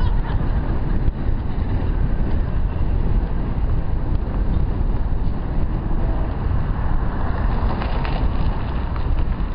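Wind rushing over a helmet-mounted camera's microphone on a moving road bike: a steady, loud low rumble.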